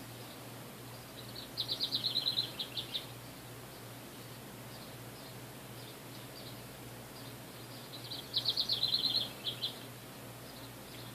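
A wren singing twice: two bursts of rapid, high trilled notes, each about a second and a half long, some six seconds apart.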